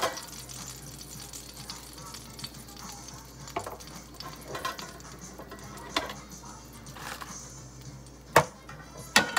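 Kitchen clatter of a spatula and a foil pan against dishes as food is plated: a few short sharp knocks, the loudest near the end, over faint background music.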